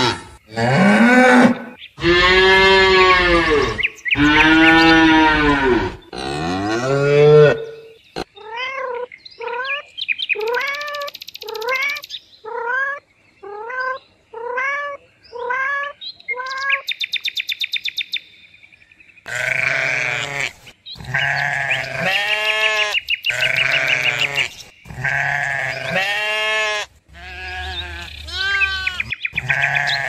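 A series of animal calls: several long, loud, pitched cries that rise and fall, then a quick run of short repeated calls, a brief high buzz, and more wavering cries toward the end.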